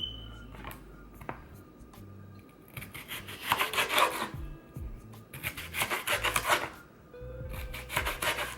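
A knife cutting a red bell pepper on a cutting board, in three quick runs of rapid strokes.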